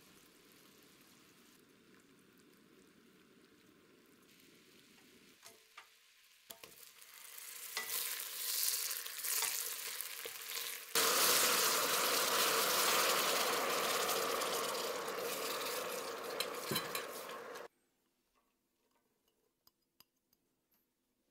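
Sugar syrup bubbling quietly in a stainless steel saucepan, then sizzling caramel stirred with a wooden spoon as butter goes in. About eleven seconds in, a much louder steady hiss and spatter as hot water hits the hot caramel; it cuts off suddenly, leaving a few faint taps.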